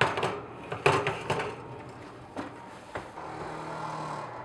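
Metal clatter and knocks of a cake tube pan and oven racks being handled in a wall oven, several sharp knocks in the first second and a half and a couple of lighter ones later. A low steady hum starts about three seconds in.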